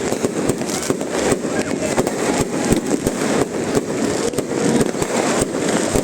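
New Year's Eve fireworks going off in quick, irregular bangs, several a second, over the steady noise of a large crowd.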